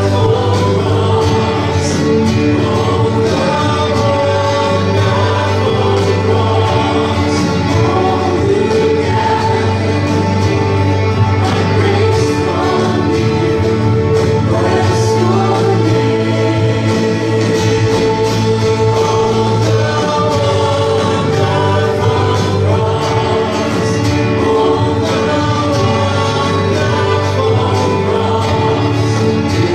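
Live worship band playing a slow song: several voices singing over guitar and sustained instrumental chords.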